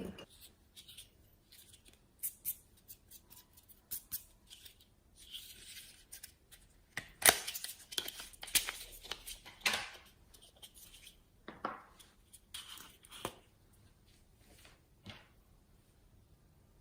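Slime being pressed and pulled by hand, giving irregular sticky crackles and pops, loudest in a cluster around the middle.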